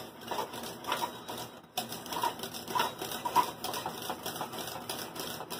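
Wire whisk scraping and clicking rapidly against the sides of a stainless steel pot while stirring thickening polenta, with a brief pause a little under two seconds in.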